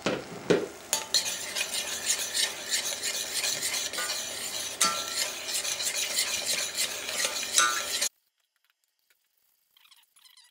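Spoon stirring and scraping in a stainless steel saucepan of thick, simmering sauce as marinade is worked in a spoonful at a time, over a steady sizzling hiss with occasional clinks of the spoon on the pan. The sound cuts off abruptly about eight seconds in.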